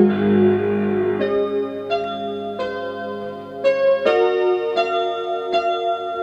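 Slow solo piano music: a new note or chord struck about every three-quarters of a second and left to ring.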